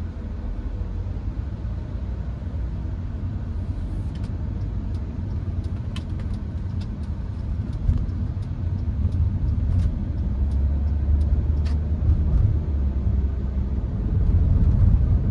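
Hyundai HB20 1.6 automatic heard from inside the cabin while driving: a steady low rumble of road and engine noise. Scattered light clicks come through from about four seconds in.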